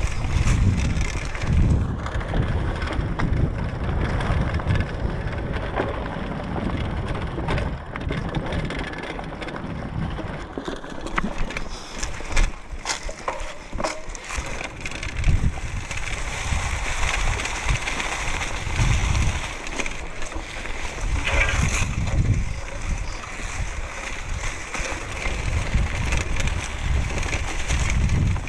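Mountain bike riding down a leaf-covered singletrack: tyres rolling over dry leaves with scattered sharp knocks from the bike over bumps, and wind buffeting the microphone.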